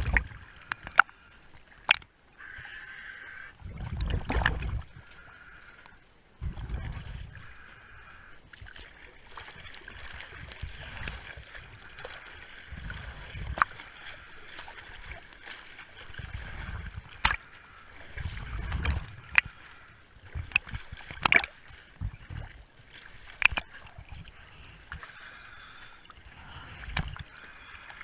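Water sloshing and splashing against a microphone held right at the waterline beside a sailboat hull, with low thuds every few seconds and scattered sharp clicks.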